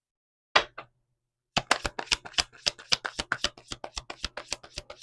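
Tarot cards being shuffled by hand: two short card snaps about half a second in, then from about a second and a half in a fast run of card clicks, several a second.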